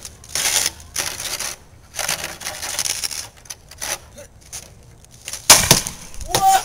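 A plastic snow shovel scraping and knocking along a concrete sidewalk as it shoves a plastic bottle, in a series of short rasping scrapes. Near the end there is one sharp, loud thump.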